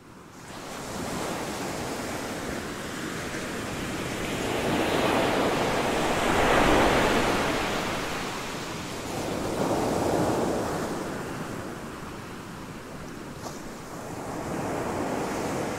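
Ocean surf: waves breaking and washing in. It fades in at the start and swells loudest about six to seven seconds in and again around ten seconds.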